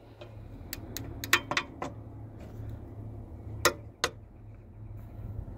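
Sharp metallic clicks and clinks of a torque wrench with a crowfoot head working on high-pressure fuel line nuts: a quick cluster in the first couple of seconds, then two more a little before and after 4 s.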